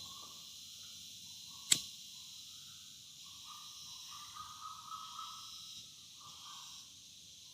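Forest ambience of steadily droning insects, with one sharp click a little under two seconds in and faint wavering calls through the middle.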